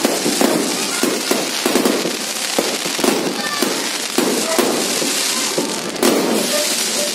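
Fireworks going off in rapid succession: a dense, unbroken run of bangs and crackling.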